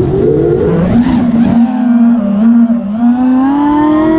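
FPV racing drone's motors and propellers whining, the pitch shifting up and down with the throttle and climbing steadily over the last second or so.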